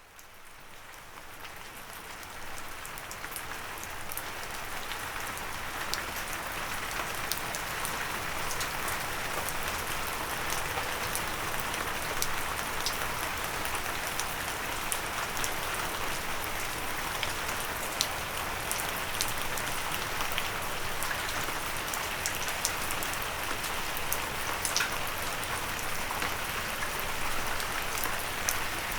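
Steady rain with many sharp drops ticking on a windowsill, fading in from silence over the first few seconds and then holding even.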